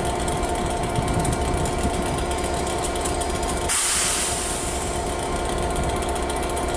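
Diesel multiple unit engine running steadily with a constant hum. About four seconds in there is a brief hissing rush.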